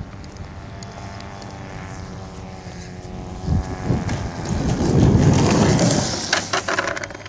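Scratch-built RC model plane's motor and propeller whining steadily as it comes in to land. A loud rough rumble follows about four to six seconds in as the plane touches down and passes close on the pavement, then a few sharp clicks.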